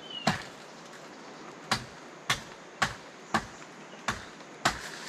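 Bamboo being chopped: seven sharp, separate strikes, the first about a third of a second in and most of the rest about half a second apart.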